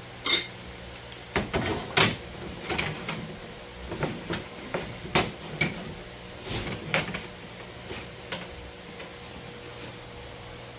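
A T-square being handled and laid against a sheet of plywood: a sharp knock right at the start, then scattered knocks and short scrapes that thin out over the last couple of seconds, over a faint steady hum.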